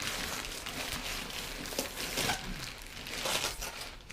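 Gift-wrapping paper rustling, crumpling and tearing irregularly as a present is unwrapped.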